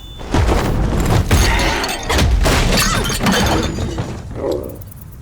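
Crashing and shattering: a rapid run of breaking impacts over a deep rumble, dying away about four and a half seconds in.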